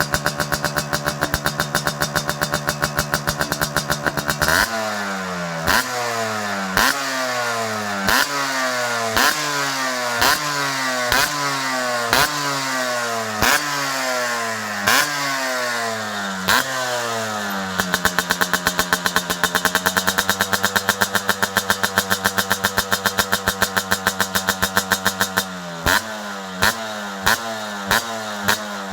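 Yamaha RX100's two-stroke single-cylinder engine through an aftermarket exhaust. It is held at steady revs at first, then blipped about once a second, each blip a sharp crack with the revs falling away after it. It settles to a steady hold again in the middle, and the blipping picks up again near the end.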